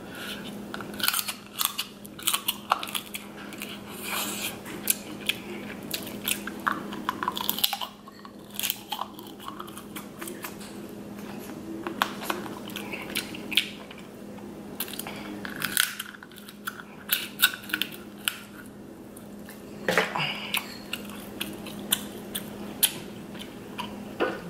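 Close-up eating sounds: chewing and biting on king crab meat, with sharp crackles and clicks as the crab leg shell is snapped and pulled apart by hand. A steady low hum runs underneath.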